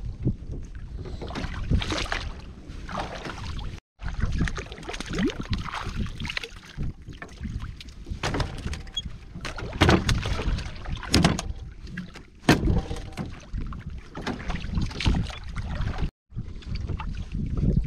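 Water splashing and sloshing around a small boat, with irregular knocks and wind rumbling on the microphone.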